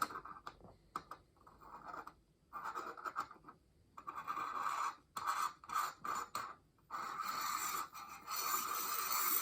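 Scratchy scraping of metal telescope-camera adapter parts being fitted and screwed together, in several spells of a second or so, with a longer spell near the end.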